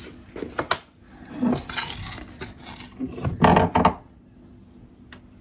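Metal cutlery clinking and scraping against a cutting board and the iced cake, a few light clicks followed by a louder clatter about three and a half seconds in.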